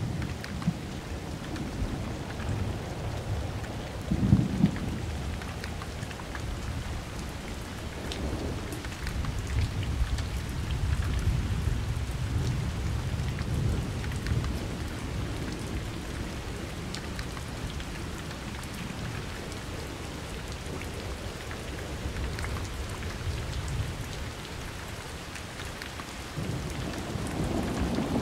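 Thunderstorm: steady rain falling on surfaces, with thunder rumbling on and off underneath and a sharper crack of thunder about four seconds in.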